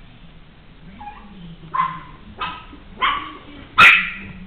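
Maltese puppy giving short, high yappy barks in play, four or five of them about half a second apart, the loudest near the end.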